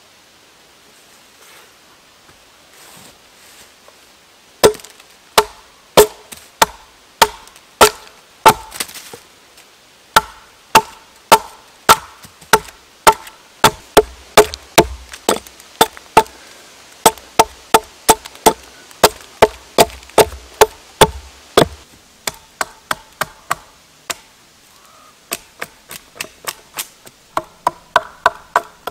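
Axe chopping into a standing birch log, hewing chips off its face: sharp blows about one and a half a second from about five seconds in. Near the end come quicker, lighter strikes.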